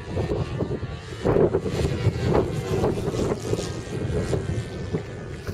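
Radio-controlled scale model Pilatus PC-9 flying, its motor and propeller a thin, steady whine, under gusty wind buffeting the microphone.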